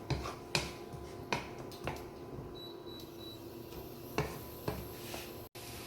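Sharp, irregular clicks of a cooking utensil against a pan as garlic and onion are stirred in oil, about six in all, over a faint steady hum.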